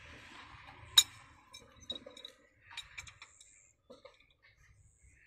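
Metal parts and hand tools clinking as they are handled at a workbench: one sharp metallic clink about a second in, then scattered small clicks and taps.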